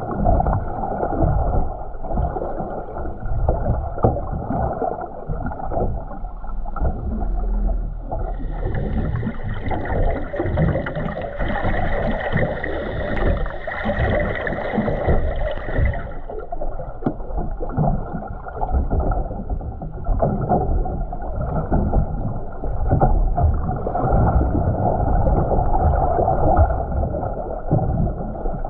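Muffled sloshing and gurgling of seawater around a camera held underwater. A steady higher hum joins in for several seconds in the middle.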